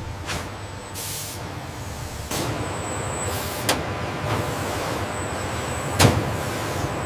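Factory machinery: a steady mechanical background that grows louder a couple of seconds in, with a short burst of air hiss near the start and a few sharp knocks, the loudest about six seconds in.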